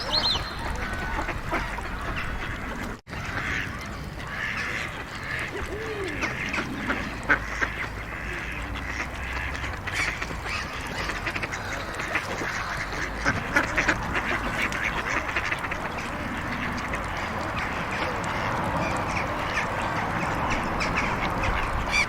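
Ducks quacking and calling over and over, over a steady low rumble of road traffic. The sound drops out for a moment about three seconds in.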